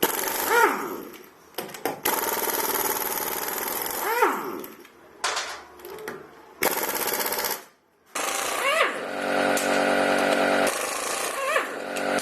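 Impact wrench loosening the wheel's lug nuts to take the wheel off. It goes in several rattling bursts of a few seconds each, with short pauses between and a rising-and-falling whine within the bursts.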